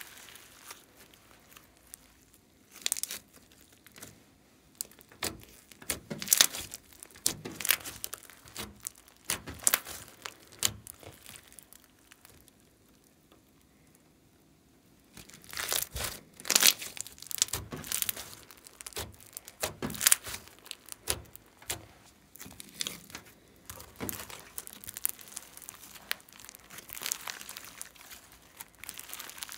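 Hands stretching, folding and squeezing thick slime with small bits mixed in, giving irregular sticky crackling and popping. There is a quiet pause of a few seconds about halfway through, while the slime hangs stretched out.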